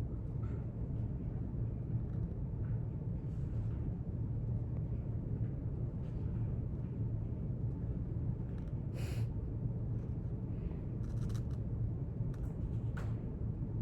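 Steady low room hum of library ambience, with a few faint short rustles and taps in the second half, the small handling sounds of reading and note-taking at a desk.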